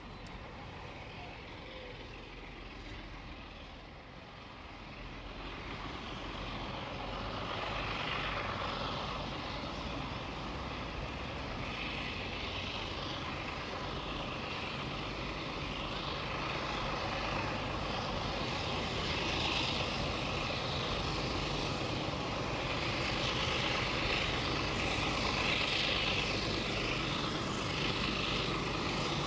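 Alco diesel locomotives hauling a passenger train, their engines droning steadily and growing louder about five seconds in as they draw closer.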